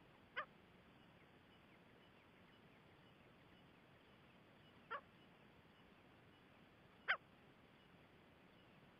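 Gray francolin calling: three short, separate call notes, about half a second in, about five seconds in and about seven seconds in, over a faint hiss.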